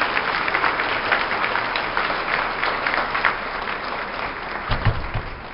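Banquet audience applauding, the clapping dying away near the end, with a few low thumps just before it fades.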